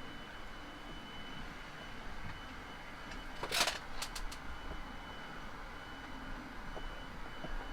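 Steady background hum with a faint high whine. About three and a half seconds in there is a short, sharp scraping noise, then two light clicks, from work on the plastic headlamp housing.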